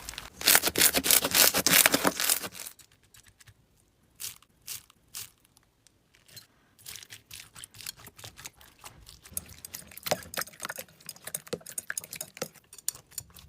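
Slime being worked by hand, crackling and popping: dense crackling for the first couple of seconds, then scattered single pops and clicks, building back to steady crackling in the second half.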